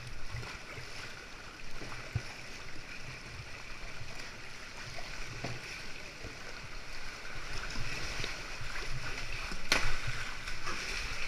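Sea water sloshing and lapping around a kayak in swell, with scattered small knocks and one sharp splash or knock about ten seconds in; the water grows louder toward the end.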